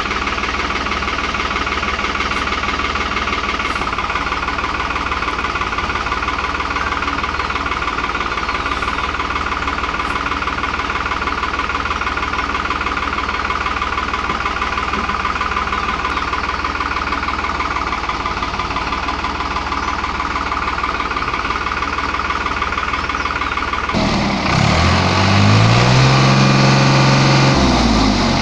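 New Holland TT55 tractor's diesel engine running steadily at idle, then revved near the end, its pitch rising and falling.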